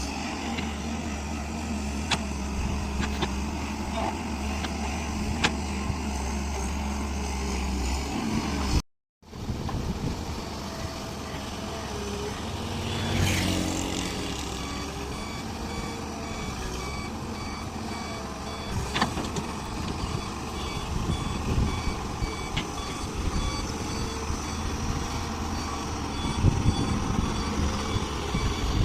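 Heavy diesel engine of a large excavator running steadily, with the sound dropping out briefly about nine seconds in. In the second half a reversing alarm beeps repeatedly over the engine.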